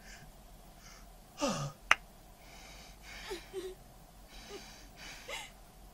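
A person's distressed, gasping breaths: a short falling cry about a second and a half in, then ragged breaths spaced a second or so apart. A single sharp click comes about two seconds in and is the loudest sound.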